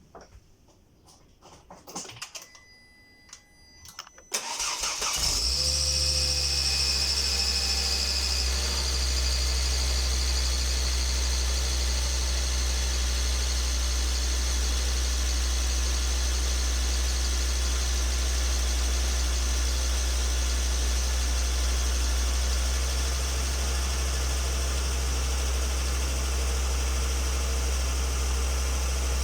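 Volvo XC90 2.5T turbocharged five-cylinder petrol engine cold-started about four seconds in after a few faint clicks, then idling steadily with a high whistle, brightest in the first few seconds after it catches. The whistle comes from a leaking exhaust manifold gasket on the cold engine, which the owner first took for the turbo.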